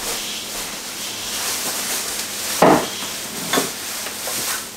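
Two dull thumps about a second apart over a steady hiss, the first one louder.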